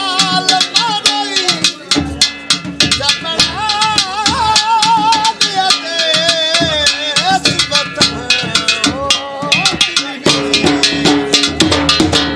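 Saraiki folk jhumar music: fast, dense dhol drumming under a wavering melody line with a steady drone beneath.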